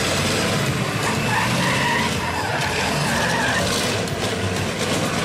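Mercedes-Benz race truck's diesel engine running as the truck spins in tight circles, its tyres skidding on wet tarmac. The sound stays loud and steady throughout.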